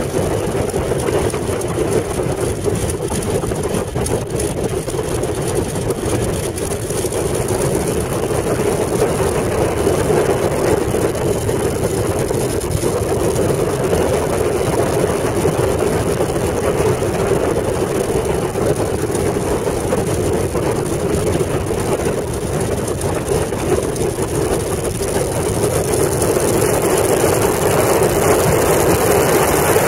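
Boeing Stearman biplane's radial engine and propeller running steadily, heard from the open cockpit as the plane taxis, with the engine growing a little louder near the end as it moves onto the runway.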